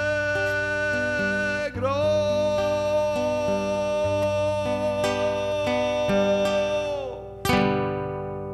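A man sings one long held note over a fingerpicked cutaway classical guitar, closing the song; the guitar's final strum comes near the end and is left ringing out.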